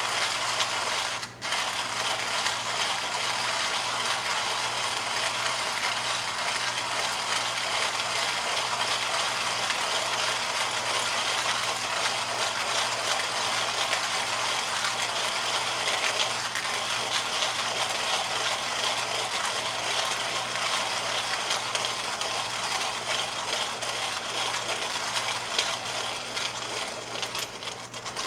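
Coffee grinder grinding coffee beans with a continuous mechanical, ratchet-like crunching that breaks off briefly about a second in.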